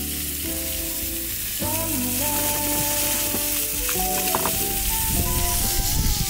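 Food sizzling in a frying pan, its crackle growing denser and louder in the second half, under background music with a melody.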